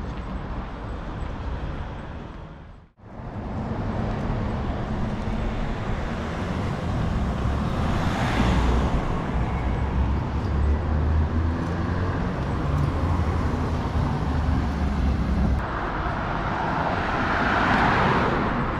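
City street traffic: steady noise of cars going by with a low engine rumble, one vehicle swelling past about eight seconds in and another near the end.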